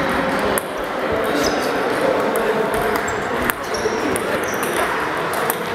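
Table tennis balls clicking now and then on tables and bats, a few sharp single clicks over steady hall noise and distant voices.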